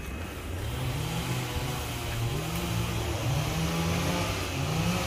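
Two-stroke chainsaw engine running and being revved up and down repeatedly, its pitch rising and falling several times.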